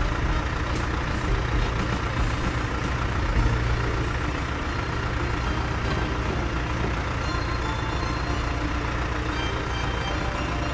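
Combine harvester running: a steady engine drone mixed with dense mechanical noise, holding even throughout.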